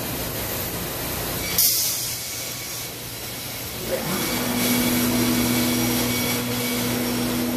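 Thermwood CNC router: a short, loud burst of air hiss about a second and a half in, then about four seconds in the spindle spins up with a brief rising whine and settles into a steady, even whine over the machine's background hum.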